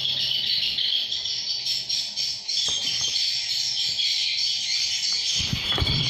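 Dense, continuous high-pitched twittering of edible-nest swiftlets in a swiftlet house, many overlapping chirps, with a few low thumps near the end.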